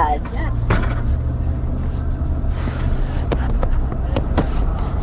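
Steady low rumble inside a minivan's cabin, with a few light knocks and rubs from the handheld camera being moved.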